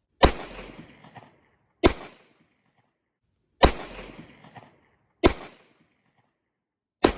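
Browning Hi-Power 9mm pistol fired five times in slow succession, about a shot every 1.6 to 1.8 seconds, each report followed by a short echoing tail.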